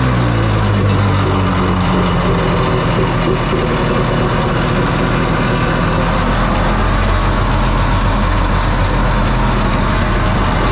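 700cc two-stroke engine of a home-built jet boat running on its first start-up, its revs falling back during the first second and then holding steady.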